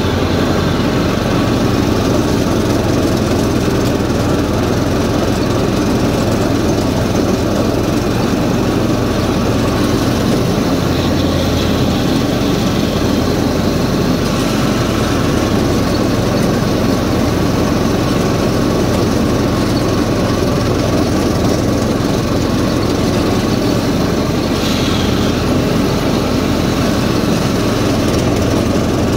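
John Deere Z225 zero-turn riding mower's 17.5 horsepower Briggs & Stratton engine running steadily with the cutting blades engaged, mowing grass.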